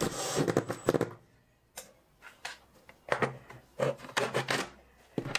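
A cordless drill runs briefly as it drives a screw into a wooden block, then stops. After a short pause come scattered knocks and rubbing as the plastic Kreg Accu-Cut saw cradle is pushed onto its wooden holders.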